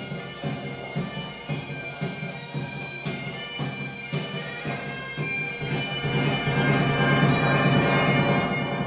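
Background music: sustained droning tones over a steady drum beat of about two beats a second. It swells from about two-thirds of the way in and begins to fade near the end.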